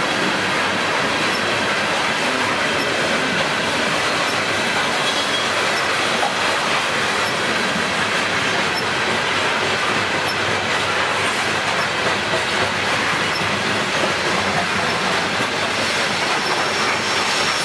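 CSX open-top coal hopper cars rolling past: the steady, unbroken noise of steel wheels running on the rails.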